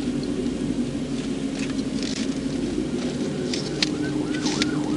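A steady, low vehicle engine drone, with scattered crackles and ticks over it, from a car creeping along at walking pace.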